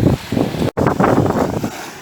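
Wind buffeting the microphone over the sound of surf, loud and gusty. It cuts out completely for an instant just under a second in, then dies down near the end.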